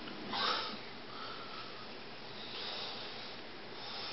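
Faint breathing of a person, with one louder breath about half a second in and softer ones later.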